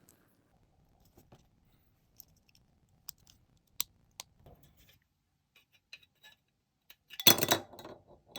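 Sharp little clicks and taps of plastic model-kit parts being handled, a few scattered over the first five seconds, then a louder burst of crunchy plastic handling noise about seven seconds in.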